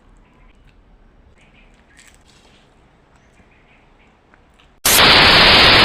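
Faint background ambience with a few soft chirps, then about five seconds in a sudden, loud burst of white-noise static that cuts in abruptly and holds steady.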